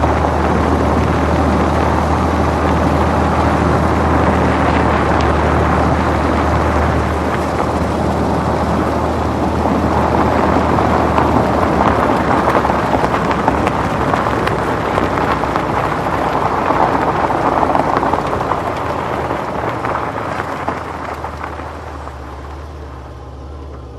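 Car moving over fresh snow: a low, steady engine hum under a dense crackling crunch of tyres on snow, fading away over the last few seconds.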